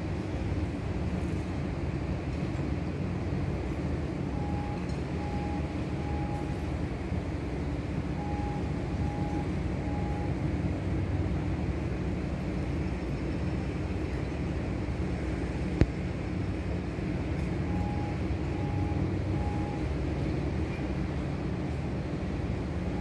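Steady low rumble of outdoor city and waterfront background noise. A short high beep sounds three times in a row on three occasions, and there is a single sharp click about two-thirds of the way through.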